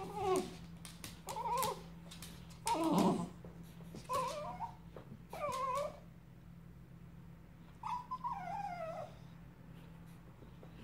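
Cockapoo whining to beg for food: about six short, wavering whines, the last one longer and falling in pitch.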